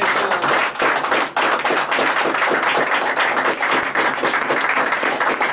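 A small audience on its feet applauding, many hands clapping densely and steadily in a standing ovation.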